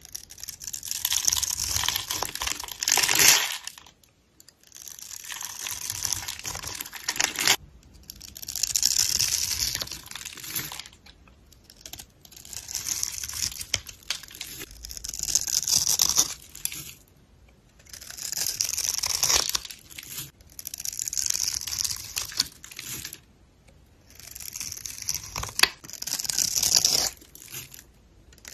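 A craft-knife blade cutting through a bar of dry soap scored into small cubes, the cubes crunching and crumbling off as it goes. It comes in repeated passes of two to three seconds with short pauses between, about nine in all.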